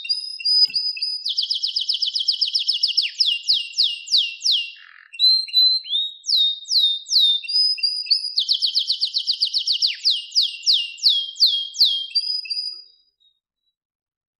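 Songbird singing long, fast trills of repeated falling whistled notes, several per second, broken by short chips and whistles between the trills. The song stops near the end.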